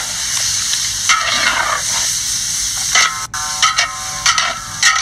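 Goat curry sizzling in a large wok while a spatula stirs it, with several scraping strokes of the spatula against the pan, most of them in the second half.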